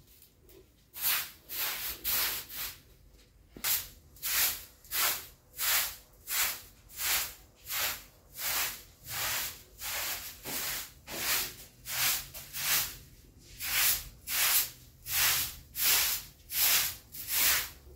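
Broom sweeping a carpet: a steady run of rhythmic swishing strokes, about three every two seconds, starting about a second in.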